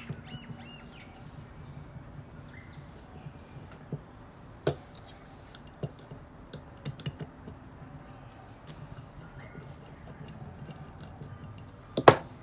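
Screwdriver working a screw on a Solex 34 PICT-3 carburettor body: scattered light metal clicks and scrapes. Near the end comes a louder double clack as the screwdriver is put down on the bench.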